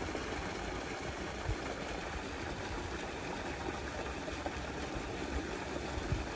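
Steady outdoor noise with an uneven low rumble, like wind on the microphone, and two soft low thumps, about a second and a half in and near the end.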